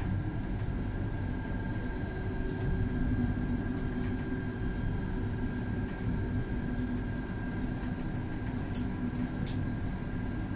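Tram running slowly on street track, heard from inside the vehicle: a steady low rumble of wheels on rail with a constant hum and a thin steady whine from the drive. A couple of faint high ticks come near the end.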